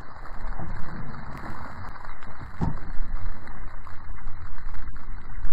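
Wind rumbling and gusting over an action camera's microphone, with a single dull thump about two and a half seconds in.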